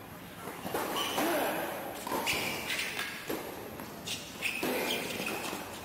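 Tennis ball struck by rackets in a doubles rally on a hard court: a serve near the start, then several sharp hits back and forth, with players' shoes scuffing on the court.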